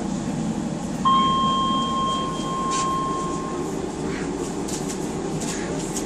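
A single steady electronic beep aboard a Docklands Light Railway train starts about a second in and holds for nearly three seconds before stopping, over the steady hum of the train.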